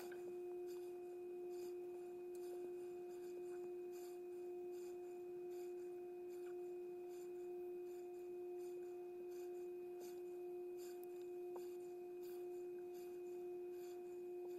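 A steady, unchanging hum-like tone with a few faint ticks now and then.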